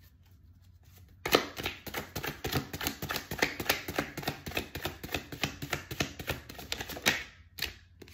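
A deck of oracle cards being shuffled by hand: a rapid run of sharp card clicks, about seven a second, starting about a second in and stopping about seven seconds in, then two single card snaps near the end.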